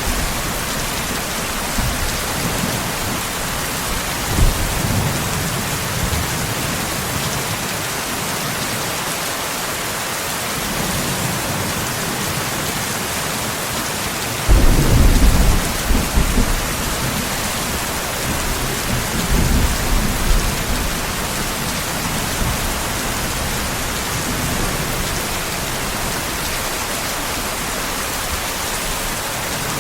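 Steady rain with rumbles of thunder. There are several low rumbles; the loudest starts suddenly about halfway through and lasts a couple of seconds.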